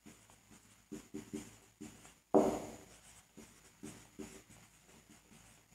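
Writing on a board: a series of faint, short strokes of a writing tool, with one louder stroke a little over two seconds in.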